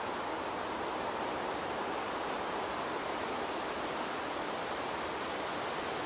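Wind sound effect: an even, steady rushing hiss without gusts or swells.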